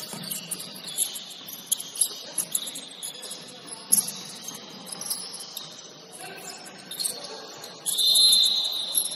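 Basketball shoes squeaking in quick chirps on a gym court, with a single thud about four seconds in. Near the end a referee's whistle is blown once, shrill and steady for about a second; this is the loudest sound.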